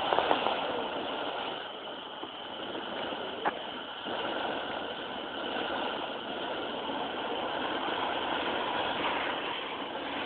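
Fountain firework spraying sparks with a steady hiss, and a single sharp pop about three and a half seconds in.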